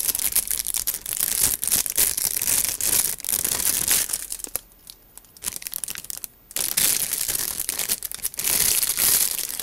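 Clear plastic bags crinkling as plastic model-kit sprues are lifted and shuffled in their box, a dense crackle with a short lull about five seconds in.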